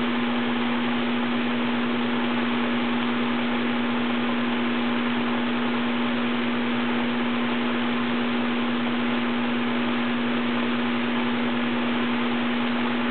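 Goodman heat pump outdoor unit with only its fan running, a steady rush of air and a steady hum, which is normal for the fan motor. The compressor has not yet started: it is held off by its start delay in cold weather.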